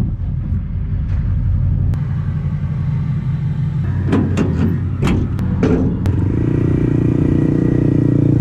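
Duramax diesel pickup engine running with a steady low rumble, growing slightly louder and fuller over the last couple of seconds. A few short, sharp sounds come around the middle.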